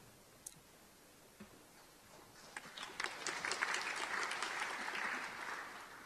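Audience applause, starting about two seconds in, building and then dying away near the end.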